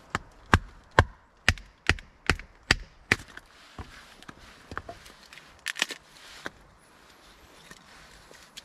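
A tool striking wood: eight sharp blows in quick succession, about two a second, then a few lighter knocks.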